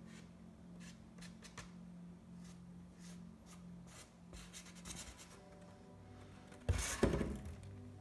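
Light scratching and tapping of painting supplies being handled, over faint music, with one louder clatter about seven seconds in.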